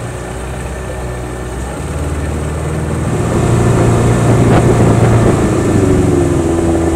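Small boat's outboard motor running under way, stepping up in pitch about two seconds in and getting louder through the middle, then easing back slightly near the end.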